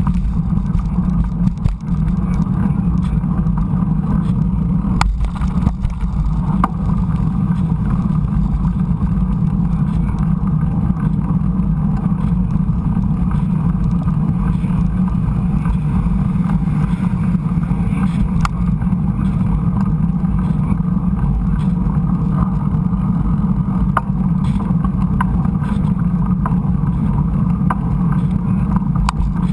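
Steady low rumble of a mountain bike rolling along a dirt trail, picked up by a GoPro: tyre noise and wind on the microphone, with scattered clicks and rattles from the bike.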